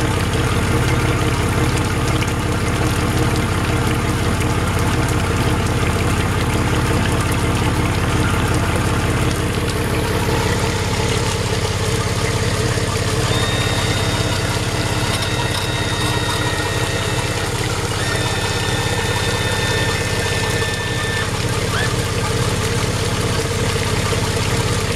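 Outboard motor idling out of the water with the boat on its trailer, running on a flushing supply, with water spattering from the lower unit and propeller.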